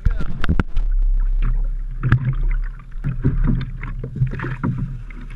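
Knocks and clunks of fishing rods and gear being handled in a small fibreglass boat, sharpest right at the start, over a low steady hum and water noise.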